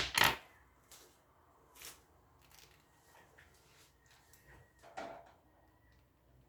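Clicks and knocks of fan parts being handled during assembly. Two sharp, loud knocks come right at the start, then a few fainter clicks, and another distinct knock about five seconds in.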